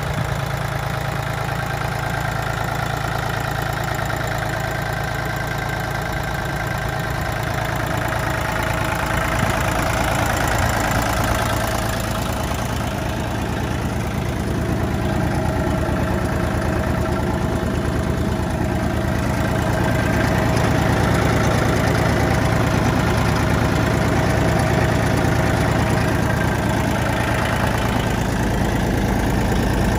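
Diesel engine of a 20 hp Iseki 205 compact tractor idling steadily.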